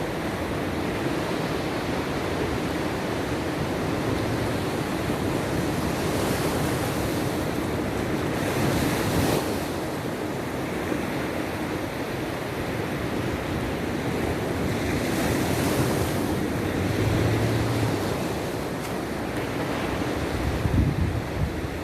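Sea waves breaking on the shore, the wash swelling up several times, with wind buffeting the microphone in low rumbles near the end.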